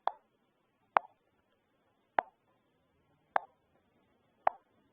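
Five short, sharp clicks or taps, evenly spaced about a second apart.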